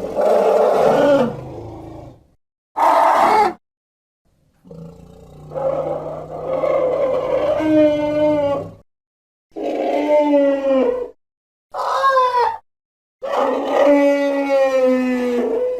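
Elephant growls and bellows, a run of about six separate pitched calls with silent gaps between them. The longest lasts about four seconds, and several bend down in pitch as they end.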